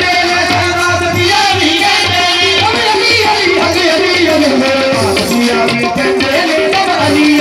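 Qawwali music: tabla keeping a steady beat under a sustained pitched melody, with singing.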